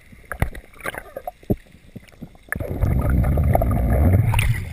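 Underwater sound heard through a camera housing: a few sharp clicks and knocks, then about two seconds of loud, low churning water from a snorkeller's fins kicking close to the camera.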